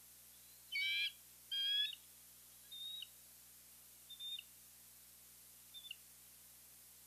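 Bald eagle calling: two loud, high-pitched calls about a second in, then three shorter, fainter calls spaced over the next few seconds.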